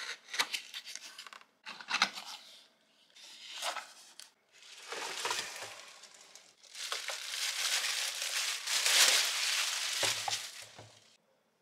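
Cardboard box flaps being pulled open in several short scraping, tearing bursts, then a clear plastic bag crinkling steadily as the wrapped waffle maker is unwrapped and lifted out, loudest a couple of seconds before the end.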